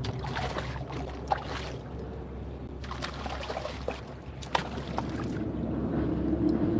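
Water sloshing against a kayak hull, with a few knocks, while a spinning reel is cranked to bring in a hooked fish. A steady hum comes in about five seconds in.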